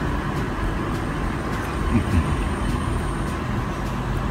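Steady background rumble and hiss, with a brief faint sound about two seconds in.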